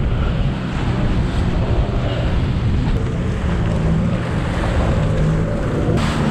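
Jet ski engine running across large storm swells, with wind buffeting the microphone and the rush of water around the hull.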